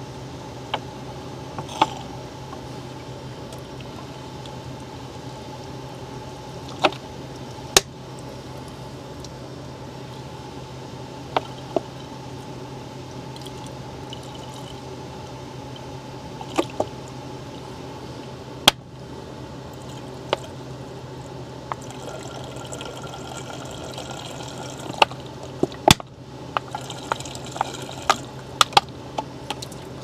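Water being squeezed from a plastic bottle into a PVC condensate drain trap to prime it, with scattered clicks and crackles of the plastic bottle, busier near the end. Under it runs the steady hum of the air handler.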